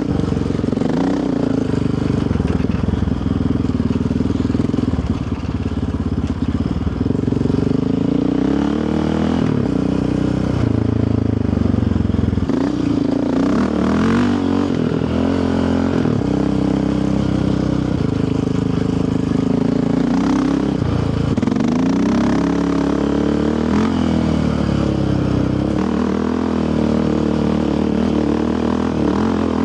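Yamaha Raptor 700R sport quad's single-cylinder four-stroke engine running under way, its pitch rising and falling again and again as the throttle is opened and eased.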